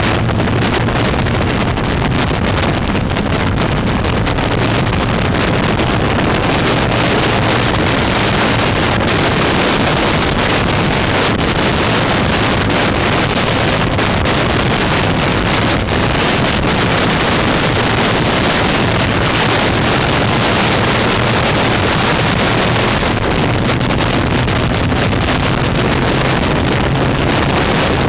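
Motorcycle at steady cruising speed: a loud, even rush of wind buffeting the microphone, with the engine's steady low drone underneath.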